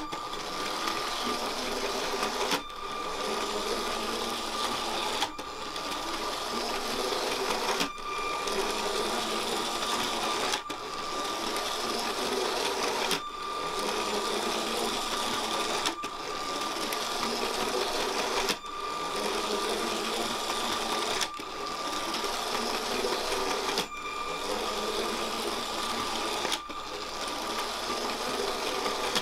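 Small electric motor and gears of a Bluetooth-controlled LEGO train locomotive whirring steadily as it runs along plastic track. A steady high tone runs through the whir, which drops out briefly about every two and a half seconds.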